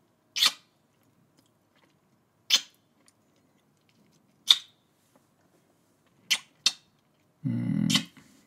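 Close-miked kissing sounds: five separate wet lip smacks spaced about two seconds apart, the last two in quick succession. Near the end comes a short low hum of the voice.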